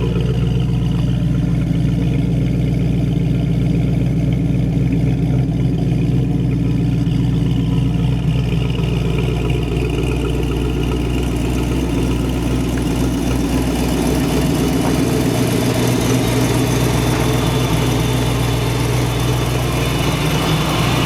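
Rebuilt, supercharged 5.0 L V8 of a 1994 Ford Mustang GT idling steadily on its first run after the rebuild. A higher hiss comes in about halfway through.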